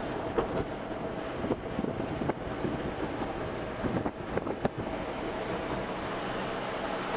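Steady road and wind noise of a moving car, heard inside its cabin, with a few faint knocks.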